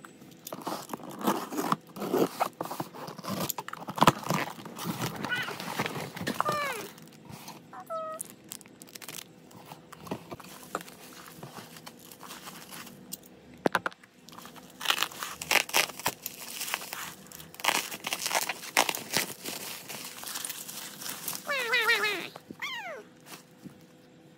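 Parcel being unpacked by hand: cardboard, packing tape and bubble wrap rustling and crinkling in irregular bursts, with sharp crackles and taps. A few short falling squeaks come near the end.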